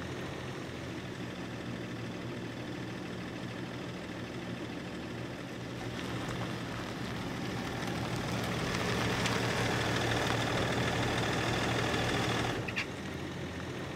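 Vehicle engine idling steadily with a low hum. From about eight seconds in, a louder hiss rises over it and cuts off suddenly near the end.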